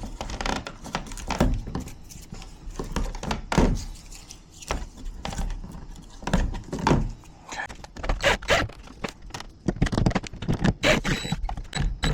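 Irregular knocks, thunks and light scrapes from a full-motion TV wall mount being handled and fitted, its metal parts clunking as they are moved.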